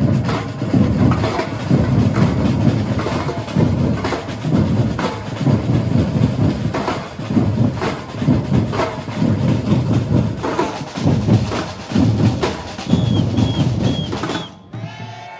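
Batucada ensemble of Brazilian samba drums playing a driving rhythm together, with deep bass drums under the sharper hits of snares and smaller drums. Four short high notes sound near the end, and the drumming cuts off suddenly just before the end.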